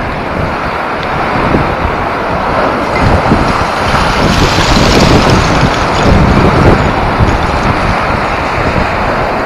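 Wind buffeting the microphone over the rush of lake waves surging under and up through the shore ice. About four seconds in, a wave forces water up through an ice volcano in a spray, and the rushing grows louder and sharper for a couple of seconds.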